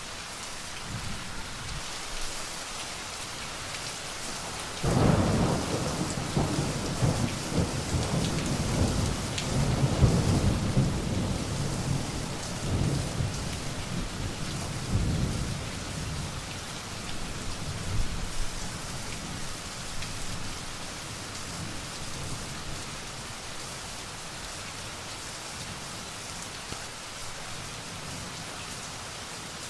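Steady rain falling, with a thunderclap that breaks in suddenly about five seconds in and rolls on in deep rumbling swells for some ten seconds before fading away.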